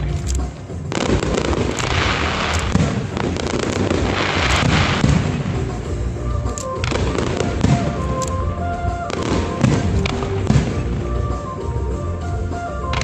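Aerial fireworks display: shells launching and bursting overhead with repeated bangs and spells of crackling.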